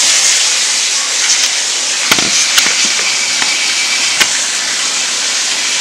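Water running in a bathtub, a steady hiss, with three sharp clicks about two seconds in, half a second later and about four seconds in.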